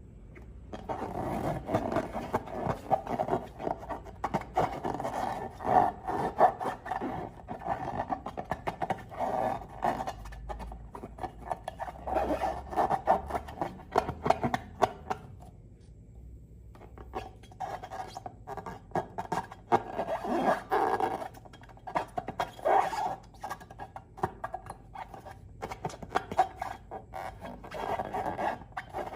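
Slime and rubber balloons being handled: sticky, crackling squishes and squeaky rubbing in irregular bursts, with a short lull about halfway through.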